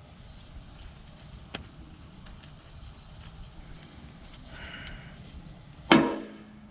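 Quiet handling of tools and hydraulic hose fittings with a few light clicks, then one sharp metallic clank near the end that rings briefly.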